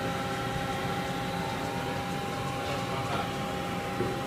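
CNC lathe running: a steady machine hum with a thin, even tone running through it.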